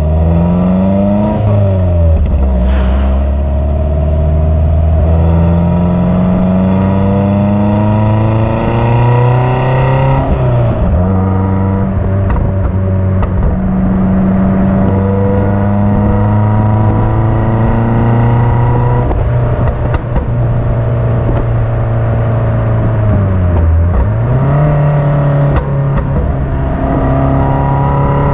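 Exhaust note of a Lotus Elise S3's 1.6-litre Toyota four-cylinder engine driving along. The engine pitch climbs slowly for several seconds and drops about ten seconds in as the throttle eases. It then runs fairly steady, with another brief dip and rise near the end.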